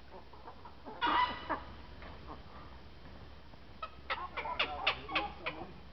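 Birds calling: one short harsh call about a second in, then a quick run of sharp chirps near the end.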